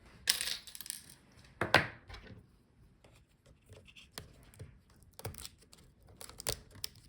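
Scattered small clicks, taps and scrapes as cable connectors are unplugged from a laptop motherboard. The two sharpest clicks come about a third of a second and just under two seconds in, with lighter ticks and rustles between.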